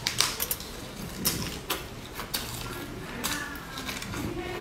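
Crisp lettuce leaves crackling and rustling as they are folded around a piece of sausage, with several sharp crunchy snaps.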